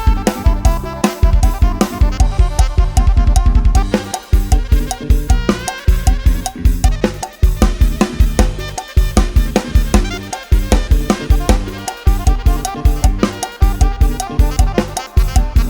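Thai Isan 'lai hae' procession music played on a live-style drum kit, with a heavy, driving bass drum and snare hits under a melody line. A fast run of drum strokes comes a couple of seconds in, then the steady beat goes on.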